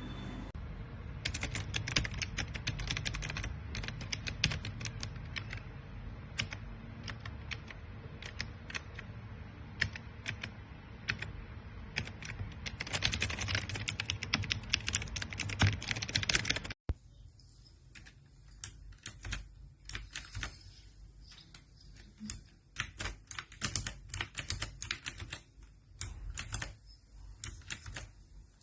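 Typing on an HJK917 mechanical keyboard with clicky blue switches: fast runs of sharp keystroke clicks, densest a little past the middle. About two-thirds of the way through, the background hum cuts out abruptly and the typing goes on over a quieter background.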